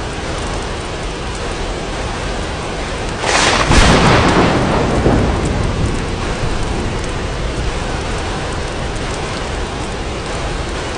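Steady rain, with a sudden thunderclap about three seconds in that rumbles and fades away over the next few seconds.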